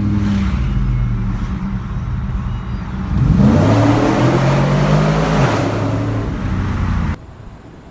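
Cammed 6.0 L LS2 V8 in a Trailblazer SS running with a terrible grinding noise from the engine, revved once about three seconds in, the rough noise growing louder with the revs; the cause is not yet known. The sound cuts off abruptly about seven seconds in.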